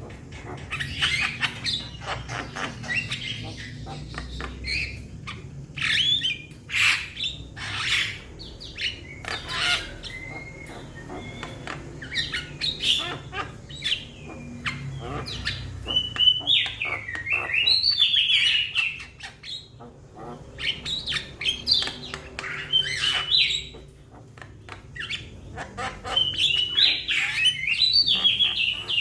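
Young Javan myna (jalak kebo) calling, a rapid, irregular run of harsh squawks, clicks and chirps, some notes sliding up and down in pitch, with a few short pauses.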